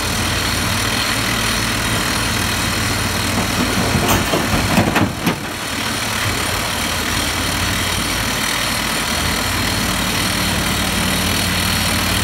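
Komatsu PC350 excavator's turbocharged six-cylinder diesel engine (SAA6D114E-3) running steadily while it works. About four seconds in, a short burst of clattering impacts: rock dumped from the bucket hitting the steel bed of a dump truck.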